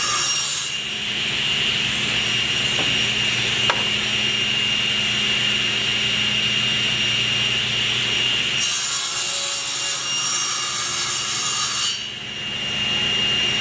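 Table saw running with a steady high whine while its blade cuts a tenon across the end of a hardwood leg.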